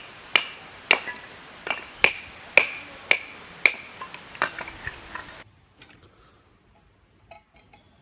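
Repeated sharp knocks, about two a second, each with a short ringing tone, ending abruptly about five and a half seconds in; a few faint clicks follow.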